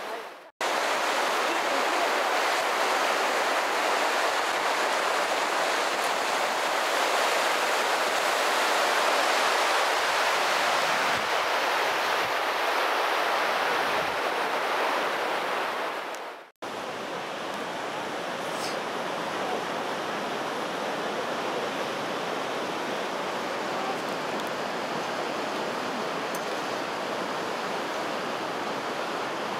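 Steady rushing of river water, an even hiss with no distinct events. About halfway through it breaks off for a moment and carries on a little quieter.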